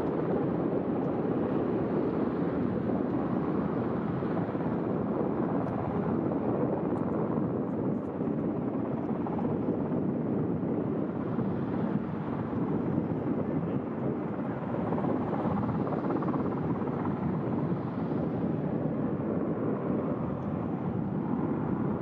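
Helicopter flying nearby: a steady, low droning rush of engine and rotor noise.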